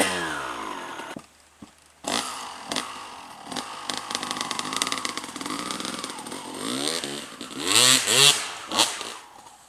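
Enduro motorcycle engines: the note falls away at the start, drops out for about a second, then comes back at a steady run with rises and falls in revs. There are loud rev bursts near the end before the sound fades.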